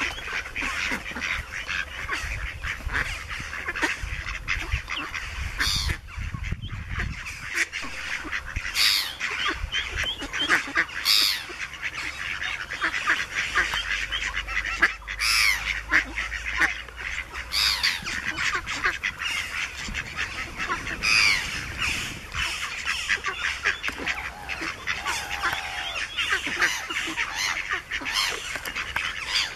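Mallard ducklings keep up a steady chorus of high peeping around their mother, and a few louder, sharper calls stand out from it now and then.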